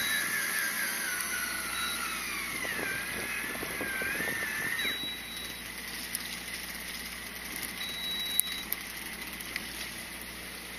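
Fishing boat at sea with steady engine and wind noise. A wavering whine runs through the first half and stops abruptly about five seconds in; a few sharp clicks follow.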